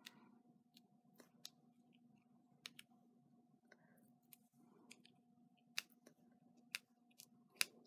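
Faint handling of a paper card: irregular sharp clicks and taps as long fingernails and fingertips press a satin ribbon bow down onto card stock. The loudest click comes near the end. A faint steady hum runs underneath.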